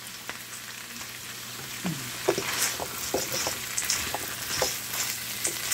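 Squash chunks, ground pork and green beans sizzling in a frying pan as they are sautéed before any broth is added. From about two seconds in, a wooden spatula scrapes and knocks against the pan as it stirs.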